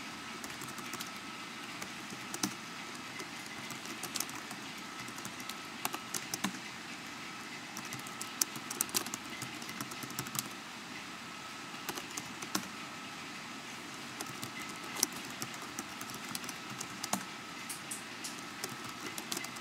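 Typing on a computer keyboard: irregular runs of key clicks with pauses between them, over a steady background hiss.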